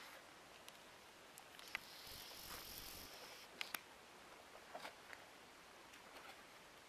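Near silence: faint outdoor hiss with a few sharp clicks and a short rustle about two seconds in, handling noise from a handheld camera.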